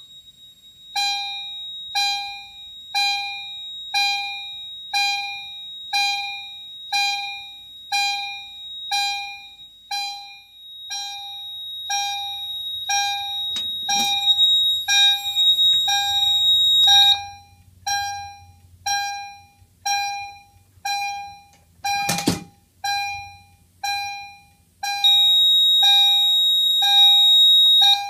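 EST fire alarm chime sounding the alarm, striking about once a second, each stroke ringing and fading. Under it, a steady high-pitched tone from the alarm panel's piezo sounder stops about two-thirds of the way through and comes back near the end. A couple of sharp knocks come in between.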